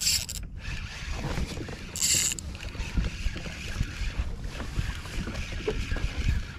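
Wind buffeting the microphone while a spinning reel is cranked against a hooked bonito, with two short, high hissing bursts, one at the start and one about two seconds in.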